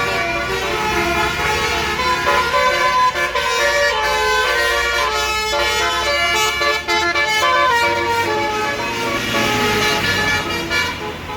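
Tour bus's basuri 'telolet' musical air horn, sounded through roof-mounted trumpets, playing a tune of changing multi-tone notes over the low running of the bus's engine.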